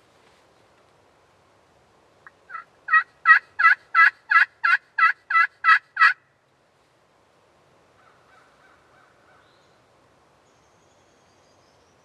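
Turkey yelping: a run of about eleven evenly spaced yelps, roughly three a second, the first few soft and the rest loud, then it stops.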